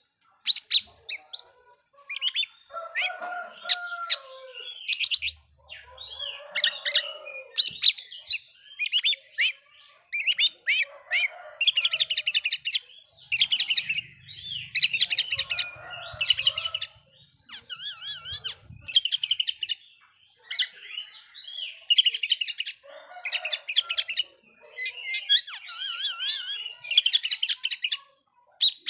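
Oriental magpie-robin (kacer) singing full, vigorous song: a string of short, varied phrases of whistles and rapid chattering notes with brief pauses between them. This is the kind of song that keepers play to rile other male magpie-robins into singing.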